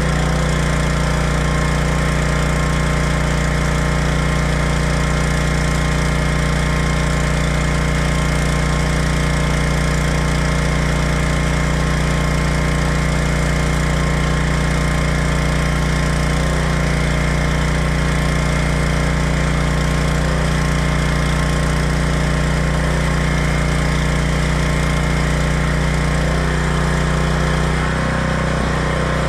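Stick-welding arc crackling and sputtering steadily as a cellulose 6010/8010 electrode burns, run on a Hobart Stickmate welder. Under it, a portable generator's engine runs steadily.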